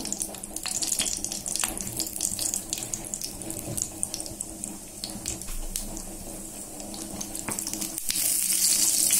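Cinnamon sticks and fennel seeds frying in hot oil in a nonstick pan, a light irregular crackle and sizzle over a steady low hum. The sizzle grows louder near the end as a wooden spatula stirs the spices through the oil.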